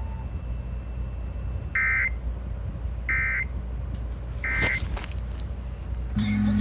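Emergency Alert System end-of-message data bursts: three short, identical warbling digital tones about a second and a half apart, marking the close of the flash flood warning, over a steady low hum. A low buzz starts near the end.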